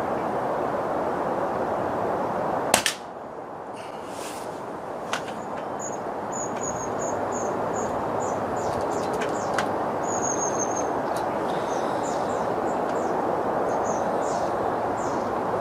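One sharp crack from a Daystate Airwolf PCP air rifle shot about three seconds in, over a steady outdoor hiss. Small birds chirp in short high notes through the second half.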